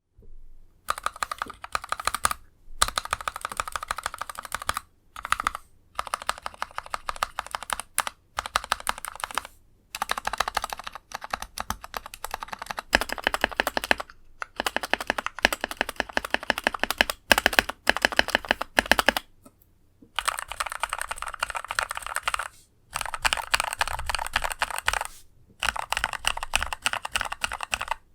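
Typing on an NK65 mechanical keyboard with Kailh Pro Burgundy linear switches lubed with Krytox 205g0: quick runs of keystrokes broken by short pauses. The switches have a deep thonk and are still scratchy despite the lube.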